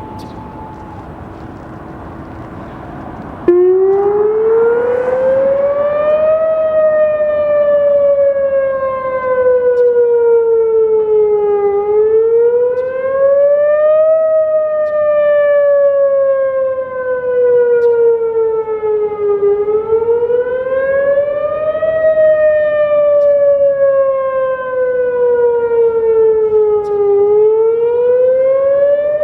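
Whelen WPS-2905 electronic outdoor warning siren sounding its wail tone during a test: a very loud pitched siren that starts abruptly about three and a half seconds in, then rises and falls slowly in repeating cycles of about eight seconds.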